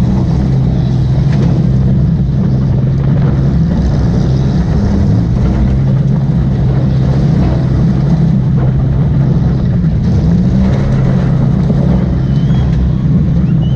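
Demolition derby car engine running loud and continuous, its pitch wavering slightly up and down with the throttle.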